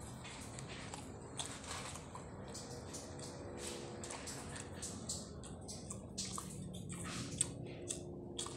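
Close-up wet eating sounds of a person chewing milkfish paksiw and rice: soft smacks and squishy clicks, scattered and irregular, a few a second at times, over faint steady background noise.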